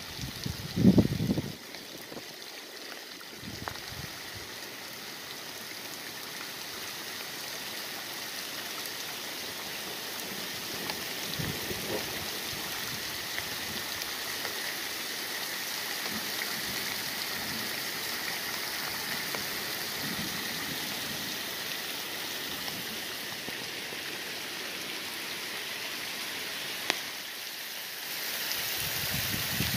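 Rain falling steadily on a river's surface, an even hiss that grows heavier near the end. Brief low rumbling in the first second or so.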